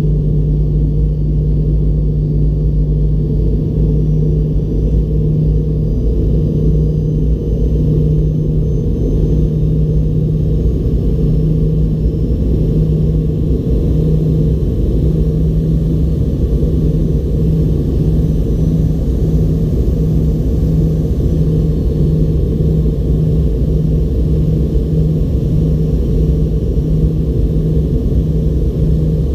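Fokker 70's rear-mounted Rolls-Royce Tay turbofan, heard from the cabin window right beside it during the descent, together with airflow over the fuselage: a loud, steady low drone. A strong hum within it begins to pulse in a regular beat from about halfway.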